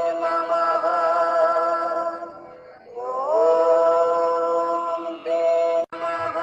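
Devotional music: a voice holding long, steady chanted notes. It dips briefly about two seconds in, glides up into a new held note about a second later, and cuts out for an instant near the end.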